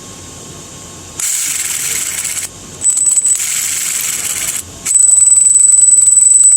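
Electric RC motor with bad bearings run up three times in bursts of a few seconds, each a gritty rasp with a high whine, the last the loudest and steadiest. The rough, grinding sound is the sign of the motor's worn bearings; the motor has failed.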